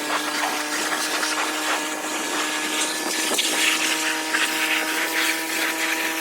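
A motor running steadily with a hum at an unchanging pitch and a hiss over it, with a few short knocks.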